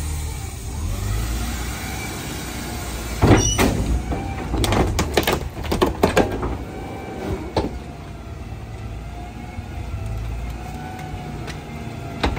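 Leach 2R-III rear-loader garbage truck running its packer cycle: the CNG engine and hydraulics run steadily with a wavering whine while the packer blade comes down on a mattress and bagged trash. A cluster of sharp cracks and crunches comes from about three to eight seconds in as the load is crushed.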